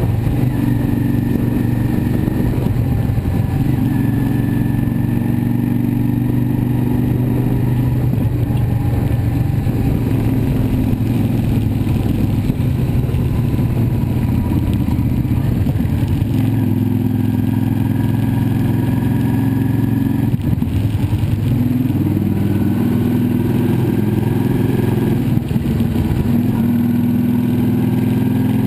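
Yamaha V-Star 650 Custom's air-cooled V-twin running under way at city-highway speed, heard from the handlebars. Its note shifts a couple of times about halfway through as the speed changes.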